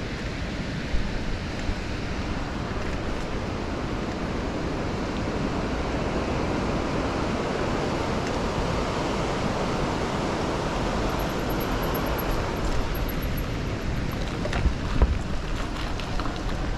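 Steady rushing noise of wind on the action camera's microphone while cycling, mixed with the rush of the river, which swells in the middle as the bike crosses the water on a footbridge. A few light knocks near the end.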